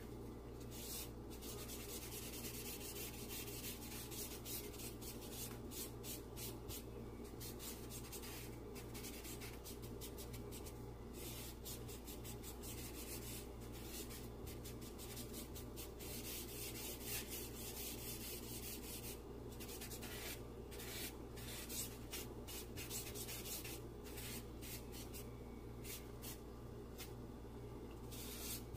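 A drawing tool rubbing and scratching charcoal into paper in many short, repeated shading strokes, over a faint steady low hum.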